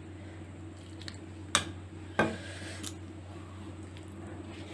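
Two light clinks of kitchen bowls or a spoon, about a second and a half and two seconds in, over a low steady hum, while hot water is added to chocolate cake batter in a ceramic bowl.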